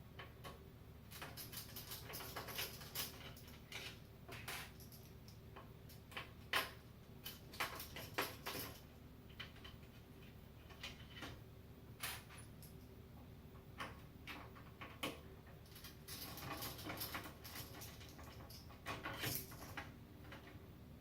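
Irregular clicks, taps and scrapes of a screwdriver and hands working at the screws and frame of a 200mm computer case fan in a PC case, over a steady low hum.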